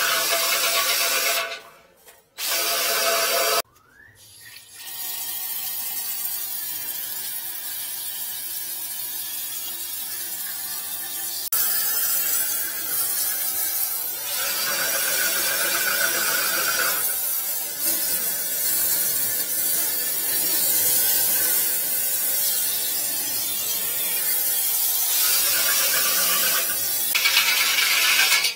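Flex-shaft drain-cleaning machine running, its spinning cable working inside the drain pipe to break up leftover cement. It makes a steady whirring hiss that shifts in pitch and loudness several times, with two short breaks in the first few seconds.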